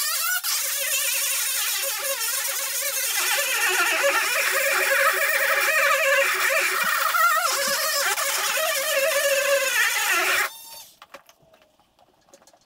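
Dremel rotary tool grinding out a hole in a fiberglass boat to enlarge it, running as a high whine whose pitch wavers as the bit loads up. It stops abruptly about ten and a half seconds in.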